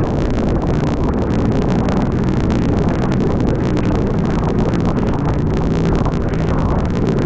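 Sea-Doo personal watercraft running steadily at speed over choppy sea: a constant engine drone under the rush of wind and spray.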